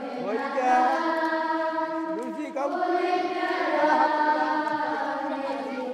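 Choir of voices singing held notes together, with one voice rising and falling over them; the chord changes about two and a half seconds in.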